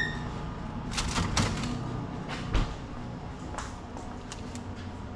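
A short high beep, then a string of irregular clicks and knocks; the loudest is a dull knock about two and a half seconds in.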